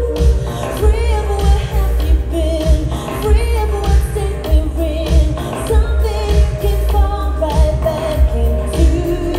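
Live electronic pop music: a woman singing a melody with vibrato over synthesizers and a steady, heavy beat pulsing about twice a second.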